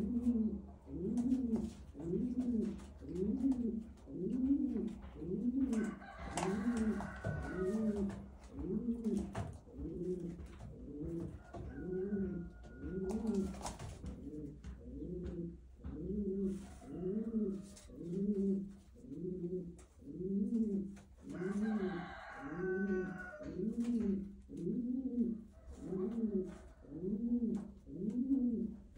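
Domestic pigeons cooing in a loft: a low coo repeating evenly, about one every three-quarters of a second, with a few brief rustles and clicks among them.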